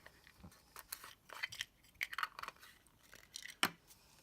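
Light rustling and irregular clicks of small scrapbook embellishments and their plastic packaging being handled, with a sharper click about three and a half seconds in.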